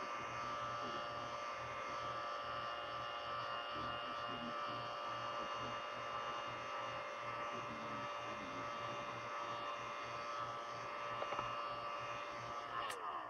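Electric heat gun running steadily, its fan motor giving a constant whine with a hiss of blown air, as it heats the adhesive under a smartphone screen to soften it. Near the end it is switched off and the whine falls in pitch as the motor winds down.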